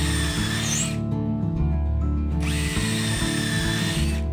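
Cordless impact driver with a drill bit boring pilot holes for nails into hinoki cypress deck boards, a steady whine. It runs until about a second in, stops, and starts again for a second hole.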